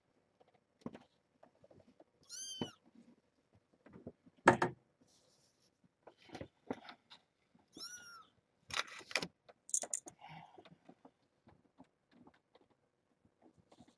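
Young kittens mewing, two short high-pitched cries, among scattered clicks, rustles and knocks; a sharp knock about four and a half seconds in is the loudest sound.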